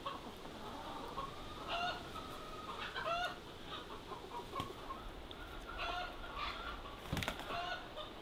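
A few hens clucking softly and intermittently while foraging, short calls spaced a second or more apart. A single short knock about seven seconds in.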